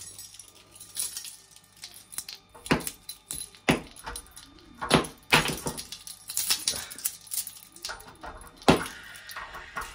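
Bunch of keys on a carabiner keyring jangling and clinking in irregular strokes while a radiator bleed key on the ring is turned in a panel radiator's bleed valve.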